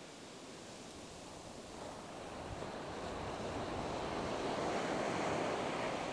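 Surf on a sandy beach: a wave breaks and washes up the shore, the rush of water swelling to its loudest about five seconds in, with some wind on the microphone.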